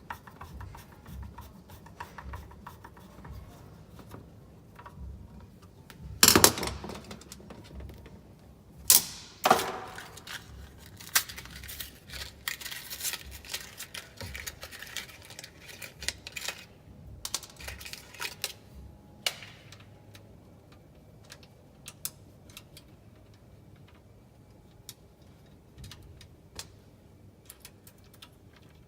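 Small hard parts and hand tools clicking, tapping and knocking as a Makita 5704R circular saw is worked on by hand, with a few louder knocks about six and nine seconds in. No motor is running.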